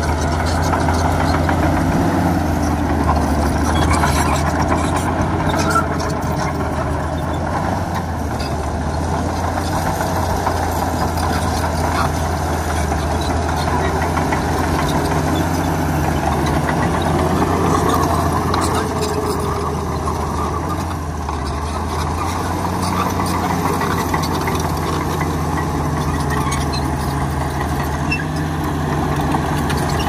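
Diesel engine of heavy earthmoving machinery running steadily, its pitch wavering slightly as the load changes.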